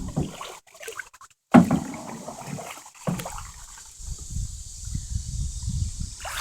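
Canoe being paddled: water sloshing and paddle sounds, with a sudden loud sound about a second and a half in and a low rumble through the last couple of seconds.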